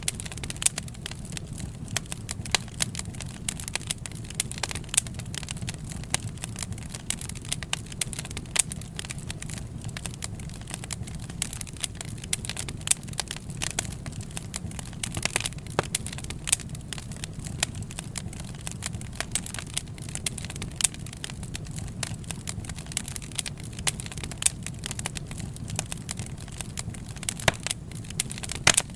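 Wood fire crackling: irregular sharp pops and snaps, some louder than others, over a steady low rumble of burning.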